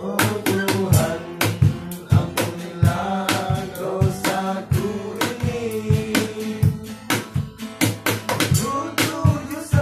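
Men singing together over improvised drumming on an upturned plastic bucket set on an upturned metal pot, struck by hand in a steady beat.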